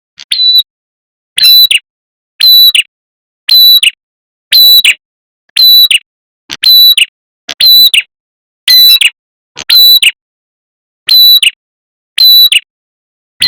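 Prenjak kepala merah (red-headed prenjak) calling in loud, short, sharp notes repeated about once a second, each note bending downward at its end. It is a lure call, played to attract wild birds of its kind.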